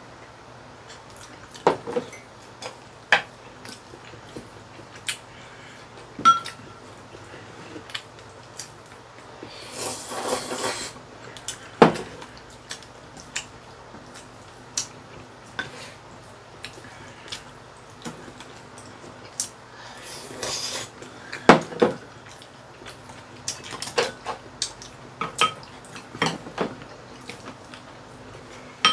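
Chopsticks and spoons clinking and tapping against ceramic bowls during a meal, in scattered sharp clicks throughout, with two longer noisy sounds of about a second each, around ten and twenty seconds in.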